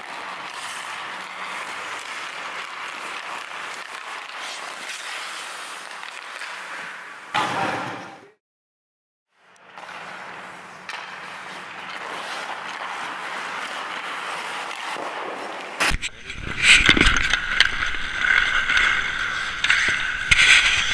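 Hockey skates scraping and carving on rink ice. About seven seconds in the sound swells, then drops out for about a second. From about sixteen seconds it turns much louder and closer, with sharp knocks mixed in.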